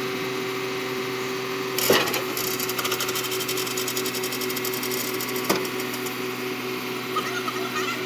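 A steady mechanical hum with a sharp crack about two seconds in, followed by fast rattling clicks, and a second sharp knock a little past halfway.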